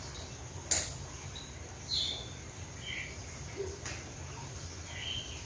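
Outdoor ambience: a few short bird chirps over a low steady background hum, with one sharp click a little under a second in.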